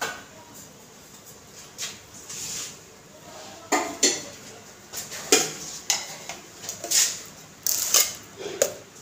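Irregular clinks and knocks of kitchen utensils and containers being handled, about ten separate taps and clatters, some ringing briefly.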